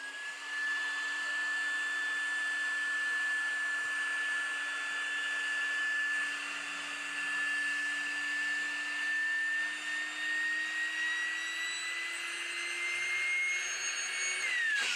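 Electric air pump running to inflate an inflatable pool: a steady high motor whine with a rush of air. Its pitch creeps up over the last few seconds before it is switched off near the end and whines down.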